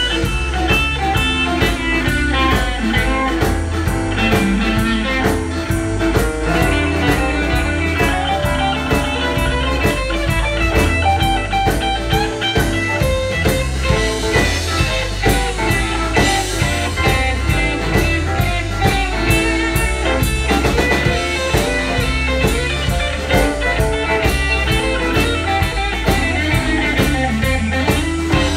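Live blues band jamming in A minor: electric guitars, bass, keyboard and drum kit playing together with a steady beat.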